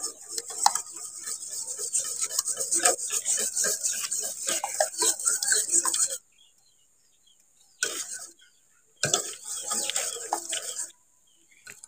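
Wire whisk scraping and clinking quickly against the sides and bottom of a stainless steel pot, beating eggs and sugar until the sugar dissolves. The whisking stops about six seconds in, then comes back in two shorter bursts.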